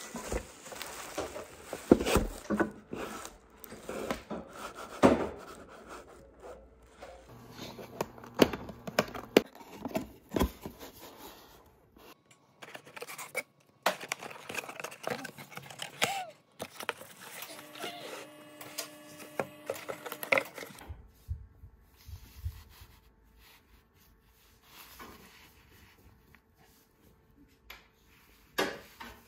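Objects being handled close up: a string of clicks, taps and knocks with some rubbing and scraping, spread over several short edited clips.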